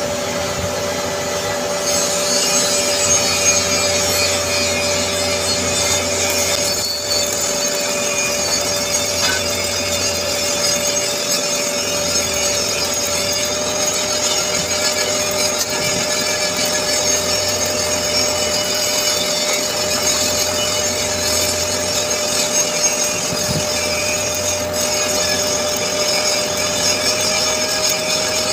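Stick (SMAW) welding arc crackling and hissing steadily as a capping pass is run on a 10-inch carbon steel pipe joint, picking up about two seconds in. A steady low hum runs underneath.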